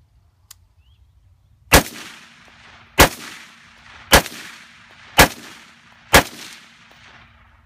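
AR-15 rifle fired five times in semi-automatic, roughly one shot a second, the spacing tightening slightly toward the end. Each shot is a sharp crack followed by a short fading echo.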